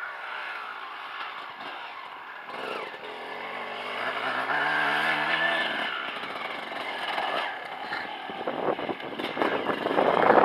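Motocross dirt bike engine revving as the bike rides along, its pitch rising and falling. The sound grows louder near the end.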